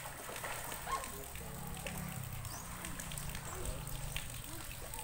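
Swimmers splashing and sloshing in shallow river water, with faint voices in the background.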